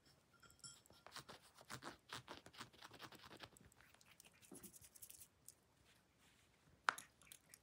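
Faint scratching and rustling of a kitten's paws and claws on a fleece blanket and plush toy, in quick irregular strokes for a couple of seconds, then a single sharp click near the end.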